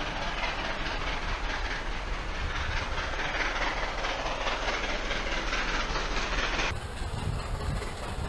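Approaching train hauled by steam locomotive 765, still some way off: a steady rushing rail noise. The sound changes abruptly about two-thirds through, turning duller.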